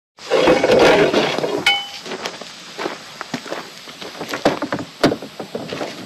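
A loud scraping rustle for about the first second and a half, then a run of irregular sharp knocks and taps.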